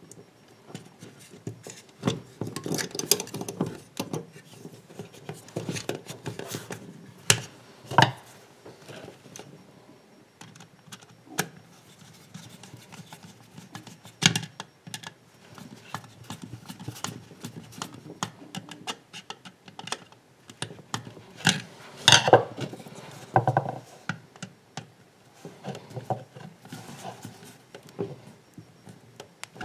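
Irregular clicks, taps and scrapes of a screwdriver working the terminal screws of a plastic cooker switch and of the stiff cable cores and switch plate being handled, with a few sharper knocks now and then.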